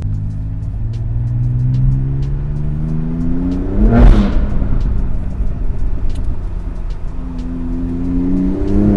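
BMW M4 Competition's twin-turbo straight-six under hard acceleration through its aftermarket DD Customs exhaust, the engine note climbing steadily. About four seconds in the pitch drops sharply with a loud crack, and the note then climbs again, dropping once more at the very end.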